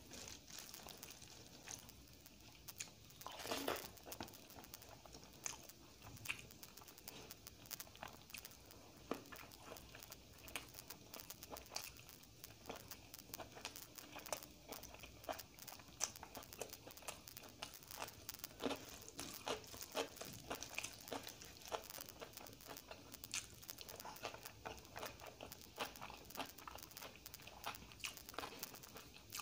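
Close-miked eating sounds: fingers squishing rice and dal, and chewing with crunchy bites of a batter-fried green chilli fritter (mirchi bajji). Many small wet clicks and crackles throughout, with the loudest about three seconds in.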